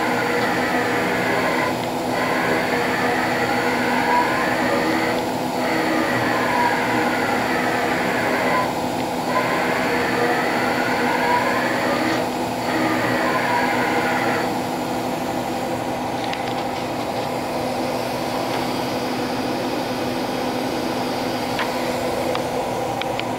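Daewoo DMV-500 CNC vertical machining center's table traversing back and forth under servo drive: a whine that rises and falls with each stroke, breaking off briefly at each reversal about every three and a half seconds, over a steady machine hum. About two-thirds of the way through the traversing stops and only the steady hum remains.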